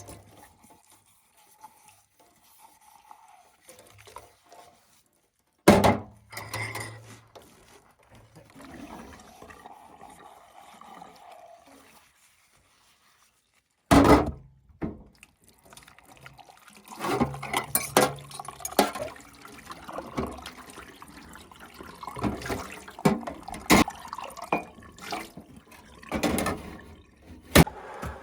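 Water sounds, like pouring or filling, in several short cut-together clips, with clicks and knocks of handling that come thicker in the second half.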